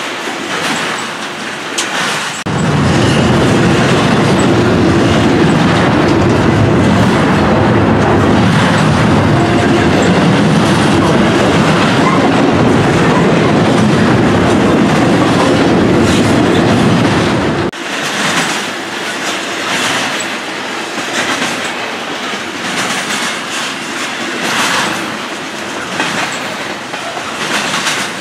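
Double-stack intermodal container cars of a long freight train rolling past at close range: a steady rumble with wheels clicking over the rail joints. The rumble turns abruptly louder and deeper about two and a half seconds in, and drops back just as abruptly at about eighteen seconds.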